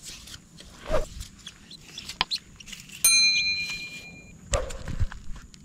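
A click and then a bright bell-like ding about three seconds in, ringing for just over a second: a subscribe-button sound effect. Around it, a few dull knocks and rustles as a long fishing pole is handled.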